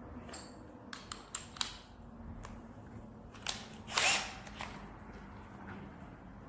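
Wood burning in a HWAM wood stove, crackling: scattered sharp snaps and pops, with one louder hissing pop about four seconds in.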